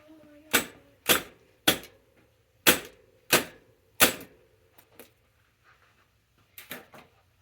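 Six sharp knocks, like blows struck on a part, spaced roughly half a second to a second apart, followed by two fainter knocks near the end.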